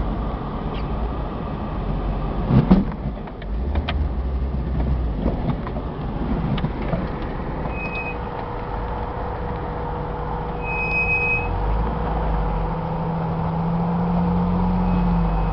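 A 4x4 off-road vehicle's engine running low and slow while crawling over boulders, with a steady low rumble and a sharp knock about three seconds in as it goes over rock. The engine note rises slightly in the later part as it climbs.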